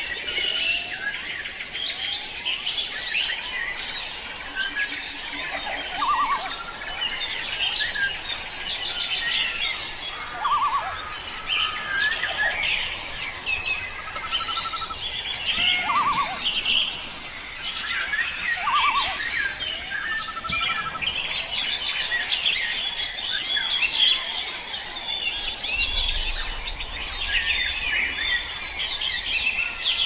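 A dense chorus of many forest birds chirping, whistling and calling over one another, with a lower trilled call repeating every few seconds.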